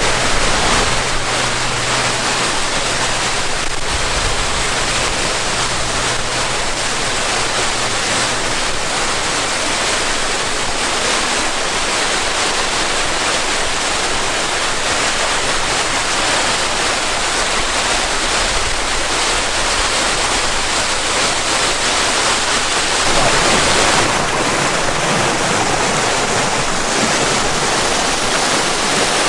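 Steady rushing hiss of a waterfall on a creek, water falling over rock. A faint low hum sits underneath until about three-quarters of the way through.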